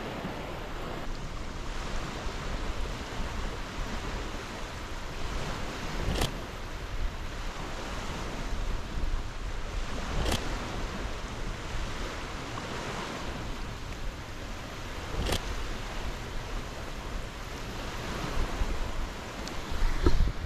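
Waves washing on a sandy lake beach, with wind, a steady rushing noise. Three sharp single clicks come through it, about 6, 10 and 15 seconds in.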